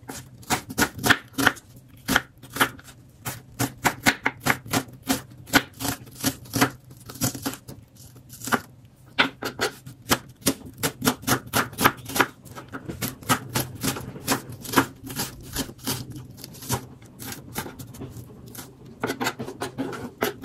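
Kitchen knife dicing an onion on a wooden chopping board: a quick, uneven run of knocks as the blade strikes the board, several a second.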